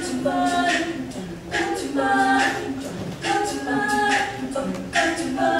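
All-female a cappella group singing in harmony, without instruments, in phrases of held notes about a second long.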